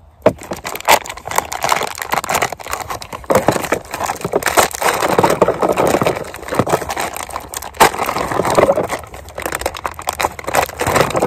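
Clear plastic bag of boilies crinkling and crackling as it is handled close to the microphone, an irregular run of crackles and rustles.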